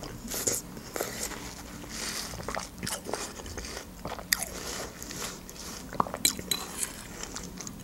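A person chewing a mouthful of juicy watermelon close to the microphone: a run of small wet crunches and mouth clicks.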